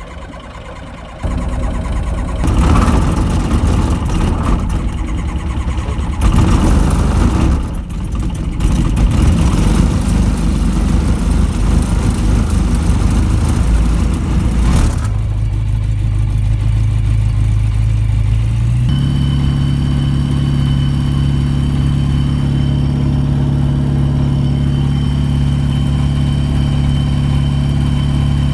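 Light aircraft's Rotax engine starting about a second in, running rough and noisy at first, then settling about halfway through to a steady tone and stepping up to a slightly higher steady speed about two-thirds through: a cold-engine warm-up run at about 2100 rpm.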